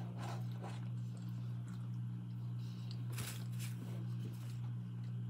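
Faint eating noises, soft chewing and a few light rustles of a paper burger wrapper, over a steady low hum.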